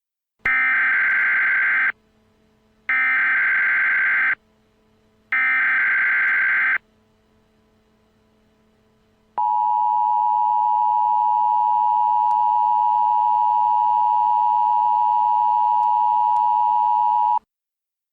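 Emergency Alert System SAME header: three short signals of buzzing data tones, about a second and a half each with a second's gap between them, then after a pause the EAS attention signal, a steady two-tone beep held for about eight seconds before cutting off. Together they announce the start of a new emergency alert.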